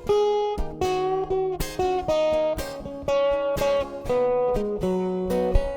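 Acoustic guitar strumming chords in an instrumental passage of a song, each strum ringing on until the next.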